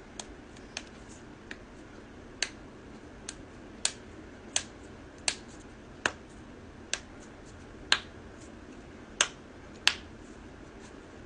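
Joints cracking: a series of about fourteen sharp pops spaced irregularly, roughly half a second to a second apart, over faint room hiss. The loudest pops come near the end.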